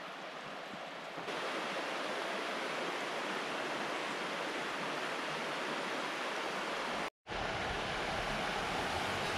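Shallow river running over rocks and small rapids: a steady rushing of water. It gets louder about a second in and cuts out for an instant about two-thirds of the way through.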